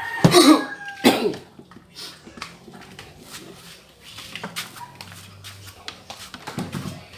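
A dog gives two short vocal sounds, about a quarter of a second and about a second in, followed by scattered light clicks and knocks.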